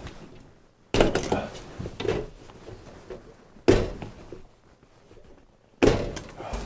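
Stuck plastic steam canister of an Aprilaire 800 humidifier being wrenched and twisted in its housing: four sharp knocks and rattles, about a second in, two seconds in, in the middle and near the end, with quieter handling noise between.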